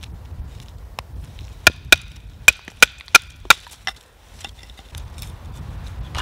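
Batoning: a wooden baton knocking on the spine of a Kephart knife with an NMV steel blade to split small firewood. Sharp knocks, one about a second in, then a quick run of about six between one and a half and three and a half seconds in, and another at the end.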